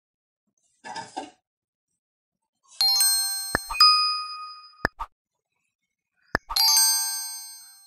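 Edited-in sound effects of a subscribe-button pop-up: two bright bell-like chimes, the first about three seconds in and the second about six and a half seconds in, each ringing and fading, with sharp mouse-click sounds around them. A short soft rustle comes about a second in.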